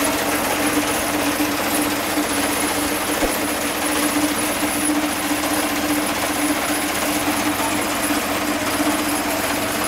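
Motorized cassava grater running steadily while cassava is pushed into it and grated into mash: a steady drone under a dense grinding hiss.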